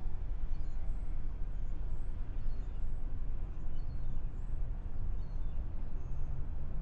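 Waitemata Harbour ambience: a steady low rumble with scattered faint, short high chirps like small birds calling.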